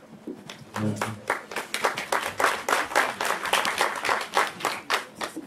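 Audience applauding, the claps starting about half a second in and stopping suddenly near the end.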